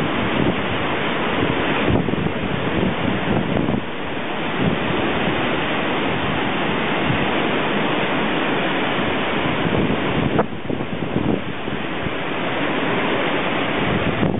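Storm-force wind from the remnants of Hurricane Ike rushing through the trees' foliage and buffeting the microphone, a loud, steady hiss with low rumbles that eases slightly about ten seconds in.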